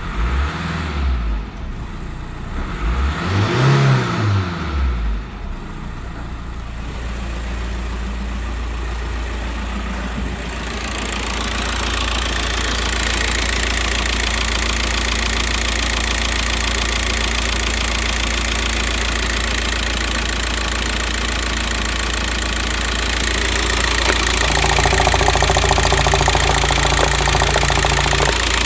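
Volkswagen 1.9 TDI (AVF) four-cylinder turbodiesel running with a diesel clatter. It is revved twice in the first few seconds, the pitch rising and falling each time with the second rev the bigger, then settles to a steady idle that gets louder near the end.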